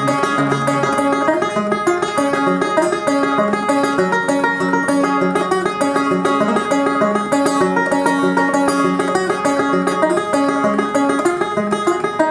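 Banjo played solo, an instrumental break of steady plucked notes with no singing.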